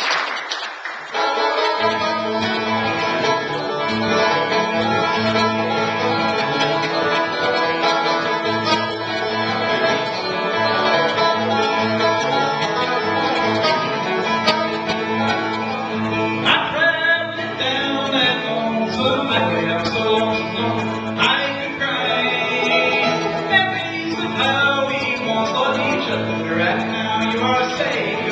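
Acoustic guitar and banjo played together in a bluegrass tune, with a man singing from a little past halfway. Applause dies away in the first second as the playing starts.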